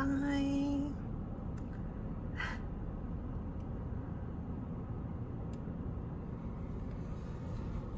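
A car horn sounds once, a steady single note lasting about a second, over the steady low hum heard inside the cabin of an idling car.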